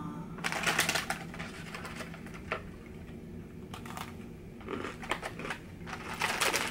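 Plastic cookie tray and wrapper crinkling as a cookie is taken out, then crisp cookie crunching in short crackly bites as a Fruity Crisp Oreo sandwich cookie is bitten and chewed.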